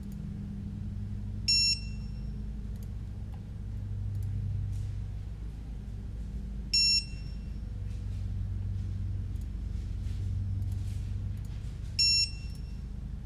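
An electronic beeper sounds three short high beeps, one about every five seconds, over a steady low hum.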